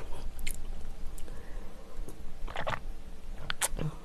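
Quiet eating and handling sounds: a few soft mouth and food noises, with a short cluster of clicks past the middle and a sharper click near the end.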